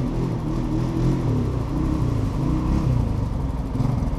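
An ATV engine revving up and down as the quad drives past close by through the mud, over the steady low running of an idling vehicle engine.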